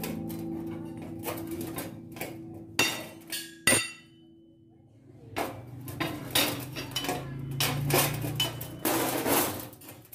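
Irregular sharp metallic taps and clinks of a chipping hammer striking a welded steel plate, knocking slag off the weld, coming thick and fast in the second half.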